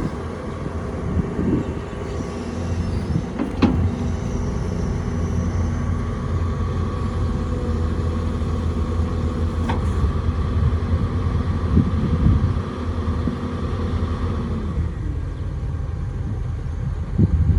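Heavy diesel engine of earthmoving machinery running steadily under load, with two sharp metallic clanks. Near the end the engine eases off to a lower, quieter note.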